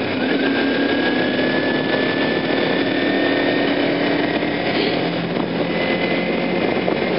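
Motorcycle engine pulling on the move: its pitch drops with a gear change at the very start, then climbs slowly and steadily as the bike accelerates, over a constant rush of wind and road noise.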